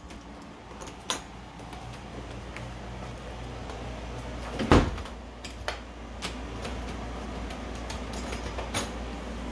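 A door bangs shut with one loud thump about halfway through. A few lighter knocks and clicks come before and after it, over a steady low hum.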